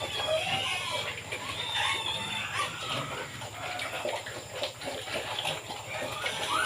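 Pigs eating cucumbers, with busy wet chewing and crunching, and short bird calls over it.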